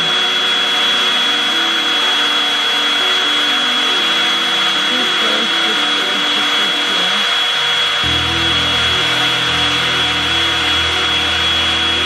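Revlon One-Step hot air brush running steadily: a fan-driven rush of hot air with a constant high motor whine as it is drawn slowly down through the hair. Background music plays underneath, and a low bass part comes in about eight seconds in.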